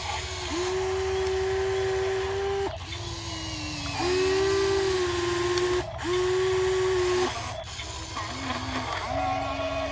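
Small electric motors of an RC model excavator whining in start-stop runs of one to two seconds as its functions are worked, the pitch sagging slightly under load and dropping lower for a few short runs near the end.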